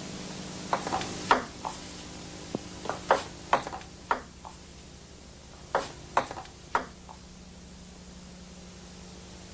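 Table tennis ball clicking sharply off bats and the table in short rally exchanges: three quick runs of hits between about one and seven seconds in, over a steady hiss and low hum.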